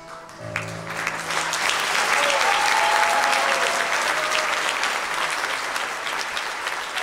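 Audience applauding at the end of a folk ensemble's song. The band's last low note dies away in the first second or so, then the clapping builds and holds steady, with a brief shout from the crowd about two seconds in.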